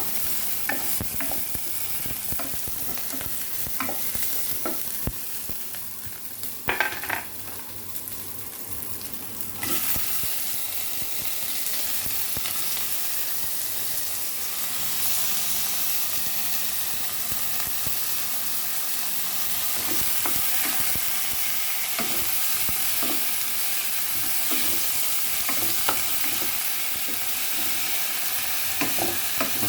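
Food frying in a pan with a steady sizzle, with the knocks and scrapes of a spatula stirring it. The sizzle jumps louder suddenly about ten seconds in and stays loud.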